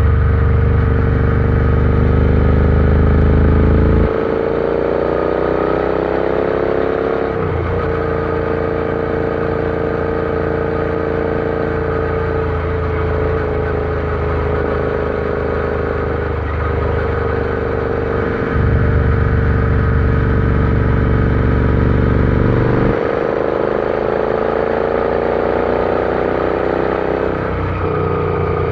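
Royal Enfield Interceptor 650's parallel-twin engine running while riding. The pitch climbs under acceleration and drops abruptly a few times as it shifts gear, between stretches of steadier cruising.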